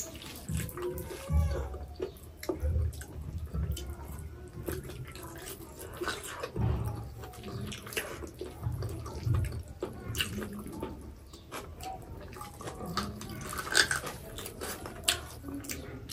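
Close-miked eating by hand: wet lip smacks, sticky clicks and chewing of pork on the bone and rice, with soft low thumps now and then.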